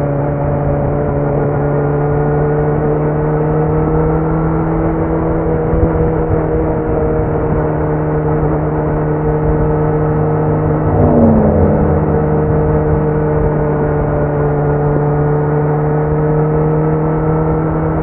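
Kawasaki Z900's inline-four engine running at a near-steady cruise through a Leo Vince muffler with the dB killer removed, its pitch drifting only slightly. About eleven seconds in there is a short falling whine.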